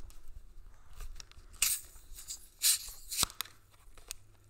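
Screw cap of a plastic bottle of carbonated Mountain Dew Major Melon being twisted open by hand. There are a few short hissy bursts and a sharp click about three seconds in as the seal breaks.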